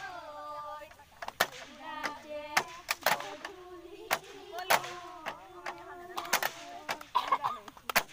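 Group of women singing a Bihu song and clapping their hands, sharp claps falling about every half second over the singing.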